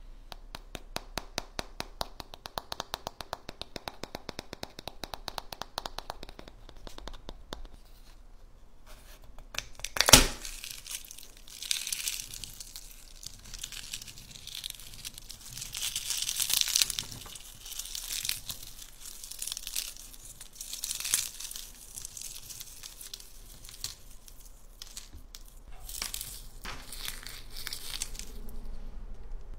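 Rapid, even ticking at about five a second for the first several seconds, then one loud crack of an eggshell about ten seconds in, followed by crackling and crinkling as the cracked shell is crushed and peeled off by hand.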